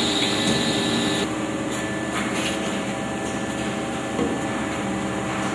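Steady hum of running workshop machinery, holding several steady tones, with an abrupt change in the background about a second in and a few faint knocks later.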